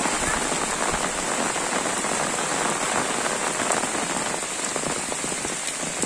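Steady rain falling on a muddy dirt road and the trees around it, an even hiss of many drops.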